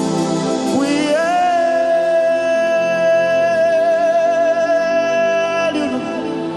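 Gospel worship music: a singer slides up into one long high note about a second in and holds it until near the end, over sustained accompaniment chords.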